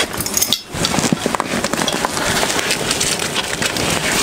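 Hands rummaging through a soft-sided cooler, its contents and their packaging rustling, crinkling and clicking in a dense, uneven patter.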